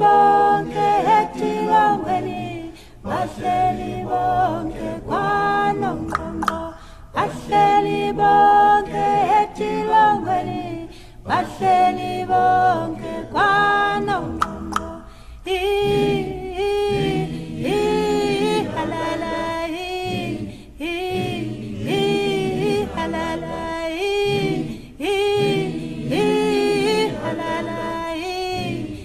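Unaccompanied voices singing a song a cappella, the melody moving in sung phrases; the song moves into a new section about halfway through.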